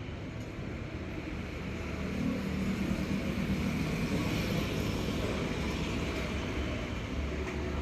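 Road traffic passing: a steady low engine hum and rushing noise that grows a little louder about two seconds in.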